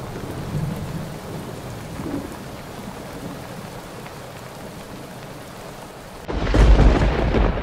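Steady rain, then about six seconds in a sudden loud thunderclap that keeps rumbling.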